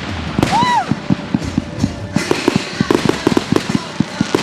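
Consumer fireworks going off: an irregular string of sharp bangs and crackles that grows denser about two seconds in, with a short pitched tone rising and falling about half a second in.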